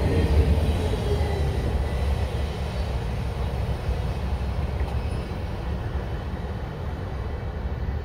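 Freight train of autorack cars rolling away on the track, a low rumble of wheels on rail that slowly fades as the train recedes.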